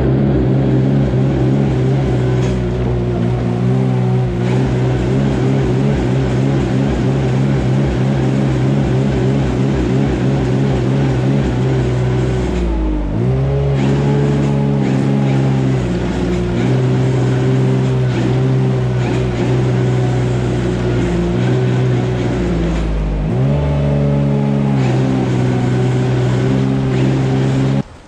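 Small air-cooled twin-cylinder engine of a ride-on cubicle bedding spreader running steadily while blowing sawdust bedding. Its note dips briefly and recovers twice, about a third of the way in and again near two-thirds, and it cuts off abruptly at the end.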